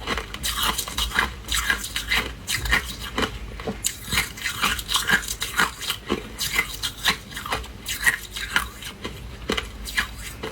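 Hard ice being bitten and chewed close to the microphone: a steady run of sharp, irregular crunches and cracks, several a second.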